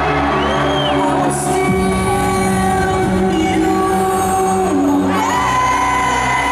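Trance music played loud over an arena sound system, in a beatless stretch: held synth chords that change twice, under a sung vocal line.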